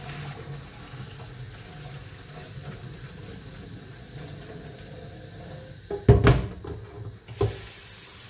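Water being poured out of a cooking pot into a stainless steel sink, draining off the water the shaki (cow tripe) was boiled in. There are two loud knocks about six seconds in and again a second later, and a brighter hiss of running water near the end.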